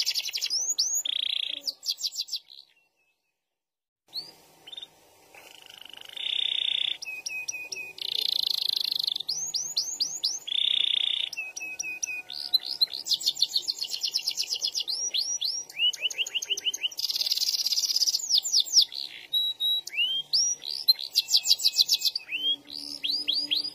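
Domestic canary singing in long rolls: rapid runs of repeated rising chirps alternating with held, high-pitched rolling trills. The song breaks off for about a second and a half near the start, then resumes.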